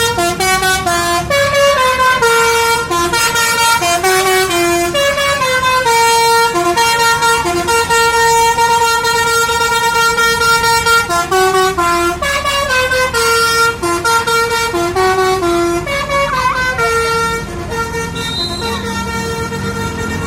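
Telolet bus musical air horn playing a tune: a run of loud, held horn notes stepping up and down in pitch, with short breaks between phrases.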